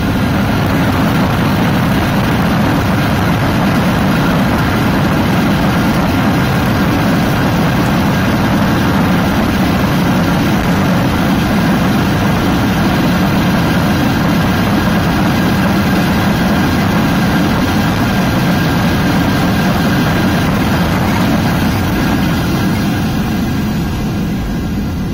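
Cabin noise of a Boeing 787-8 slowing down on the runway after landing: a loud, steady rush of engine noise and runway rumble that eases slightly near the end.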